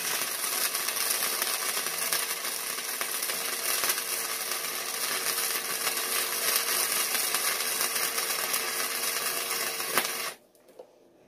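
Wire-feed welder running flux-core wire: one continuous bead with a steady crackling sizzle and a faint steady hum under it, which cuts off abruptly about ten seconds in as the arc stops.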